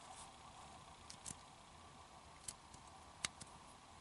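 Near silence broken by a few faint, light clicks of small plastic switch parts being handled, the sharpest about three seconds in.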